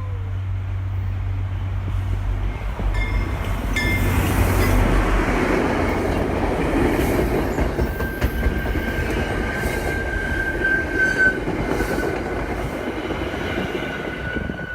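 MBTA commuter train passing at speed. A low rumble fills the first few seconds, then comes a dense rush of wheels with sharp clicks over the rail joints. A thin, high wheel squeal runs from about eight seconds in.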